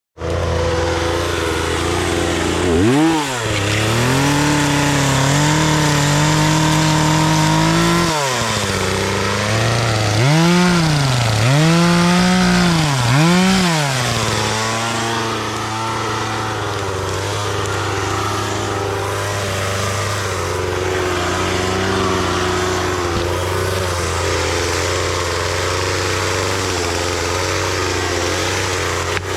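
Chainsaw engine revved up and held at high speed for about five seconds, dropping back, then blipped three times in quick succession. It then settles into a steady idle from about halfway on.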